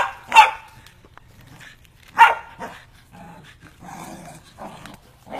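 Corgis barking as they play-fight: two sharp barks in quick succession at the start and a third about two seconds in, followed by quieter play noises.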